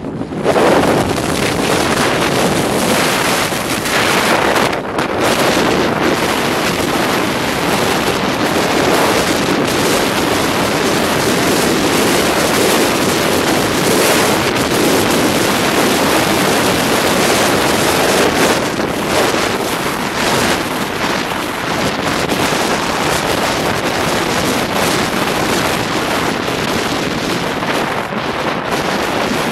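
Steady rush of wind and road noise from a car travelling at highway speed, with wind on the microphone. It gets louder about half a second in.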